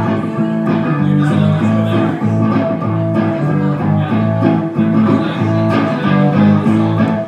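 Electric guitar strumming chords in a steady rhythm, played through an amplifier.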